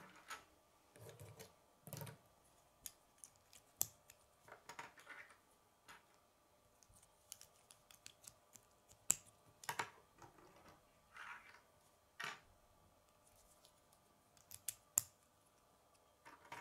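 Plastic K'nex connectors and rods clicking and snapping as they are handled and fitted together by hand: a scattering of separate sharp clicks at irregular intervals, with softer scraping between.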